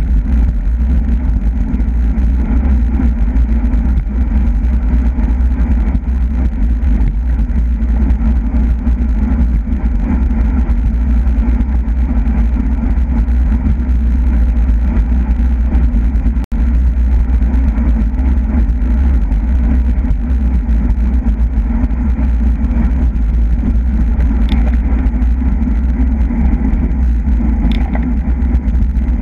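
Wind rushing over the microphone of a camera on a bicycle ridden at speed: a loud, steady low rumble, broken by a very brief dropout about halfway through.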